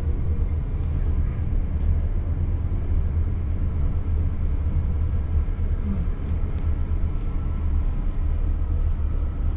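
Steady low rumble heard from inside a passenger train carriage while the train is running.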